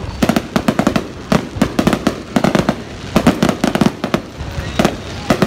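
Aerial fireworks bursting in a rapid, irregular string of sharp bangs, several a second.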